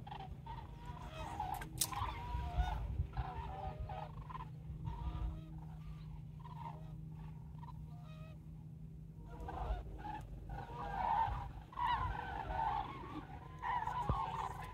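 Geese honking repeatedly: a run of calls in the first few seconds, sparser in the middle, then a denser bout of honking from about ten seconds in.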